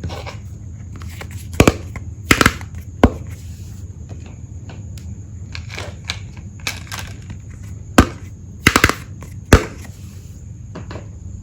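Small hard plastic toy tea-set pieces clacking sharply as they are handled and set down: about six clacks, some in quick pairs, over a steady low hum.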